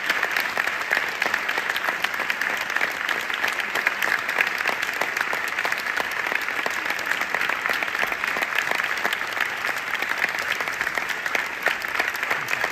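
Theatre audience applauding steadily: a dense, continuous clatter of many hands clapping.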